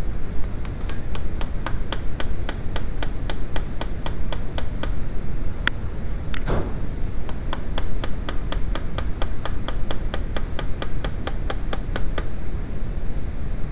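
A steady run of sharp, evenly spaced clicks, about three or four a second, from hands and a tool working on a distributor clamped in a vise, over a steady low background rumble. Near the middle the clicks pause, with a brief high tone and a short swish.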